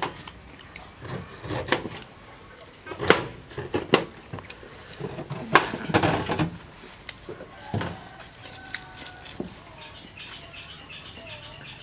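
Sharp crunches and knocks from fresh pineapple being bitten, chewed and cut with a cleaver, several of them in the first eight seconds. After that there are bird calls.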